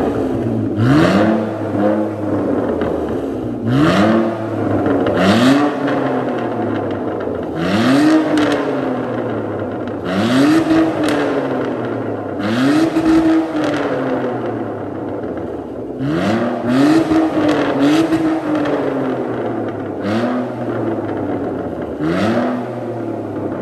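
BMW 320i straight-six with a stainless cat-back exhaust, valved rear silencer and M3-style quad tips, stationary and revved in sharp blips about every two to three seconds. Each blip rises quickly and falls back, with crackles and pops on the overrun from a mild pops-and-bangs software map, kept soft to spare the retained catalytic converters.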